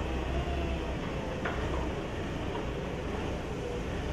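Forklift engine running with a steady low rumble amid a noisy hum, and a single light knock about a second and a half in.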